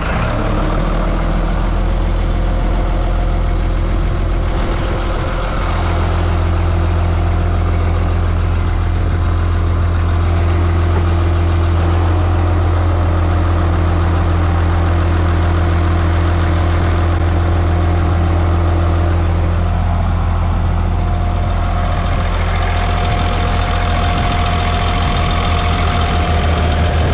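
Cat D6N bulldozer's diesel engine idling steadily, with a small step up in level about six seconds in.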